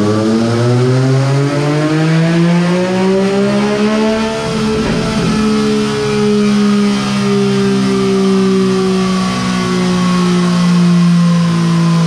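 Yamaha Tracer 900 GT's three-cylinder engine, breathing through a Jeskap aftermarket exhaust, pulling under load on a dynamometer in sixth gear: the revs climb steadily for about four seconds. Around five seconds in there is a brief rough patch as the throttle closes, and the engine note then falls slowly as the dyno rollers coast down.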